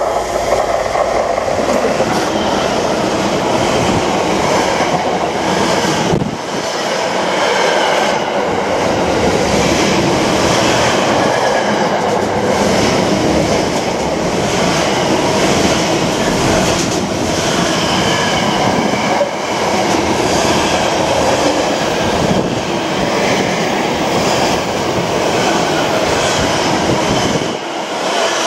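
GBRf Class 66 diesel locomotive 66729 hauling a container freight train through the station at speed, then its long line of container wagons rolling past with a steady, loud noise of wheels on rail.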